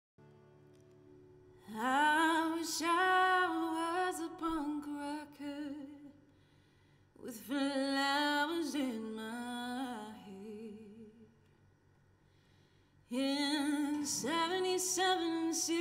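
A woman sings a slow melody in three long phrases, with short pauses between them.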